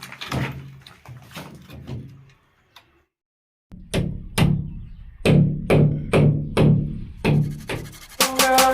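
Background music with drum beats. It breaks off about two and a half seconds in, leaving a second or so of silence, then comes back as a run of steady drum hits that swell into fuller music near the end.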